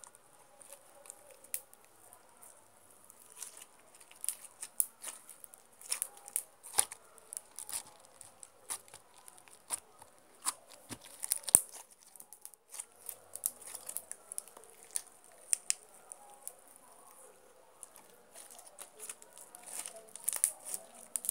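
Slime being squeezed and stretched between the hands close to the microphone, making irregular sticky clicks and crackles.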